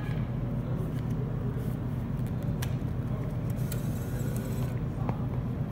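Vending machine bill acceptor briefly whirring as its motor draws in a $5 bill, about two-thirds of the way through, over a steady low hum.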